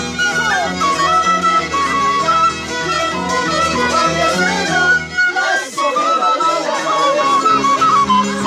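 Andean folk ensemble of violins and a diatonic harp playing a lively traditional tune, the violins carrying the melody over a plucked harp bass line. The low harp notes drop out for about a second midway, then come back.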